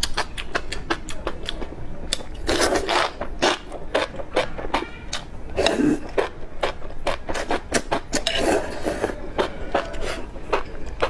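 Mouth sounds of eating enoki mushrooms from a spicy broth: wet clicks and smacks of chewing throughout, with longer slurps of the strands about two, six and eight and a half seconds in.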